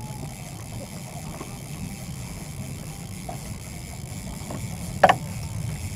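Steady low wind and water noise around a small rowboat on a rippling lake, with one sharp knock about five seconds in.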